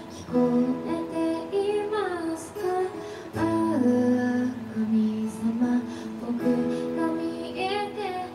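A woman singing a slow song in Japanese, accompanying herself on strummed acoustic guitar in a live solo performance.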